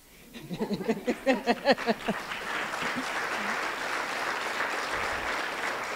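Audience applauding, the clapping swelling in after a voice in the first two seconds and then holding steady.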